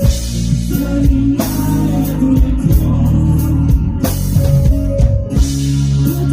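A rock band playing live in an acoustic arrangement: guitars over a steady drum-kit beat with regular cymbal strokes.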